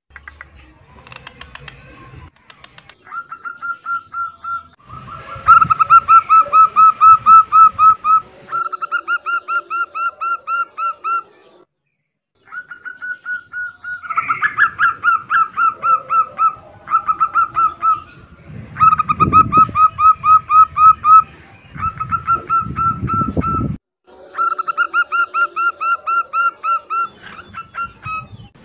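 Female zebra doves (perkutut) calling in breeding condition: runs of quick, evenly repeated coo notes, about four a second. This is the in-heat call that draws males. The runs are broken by a few abrupt short silences.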